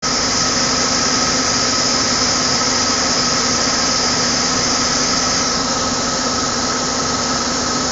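Daewoo Puma 400 CNC lathe spindle and chuck spinning at about 500 RPM: a steady machine running sound with a constant high whine.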